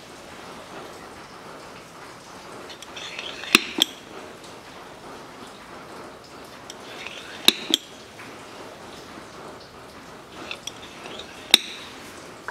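Hand oil pump being worked to push gear oil through a hose into a manual gearbox. There are three strokes about four seconds apart, each a short swishing squeak ending in a sharp metallic click.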